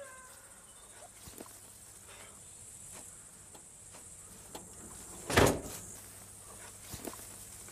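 Quiet summer field ambience with faint, steady insect chirring and a few soft clicks, broken about five and a half seconds in by one short, loud thump.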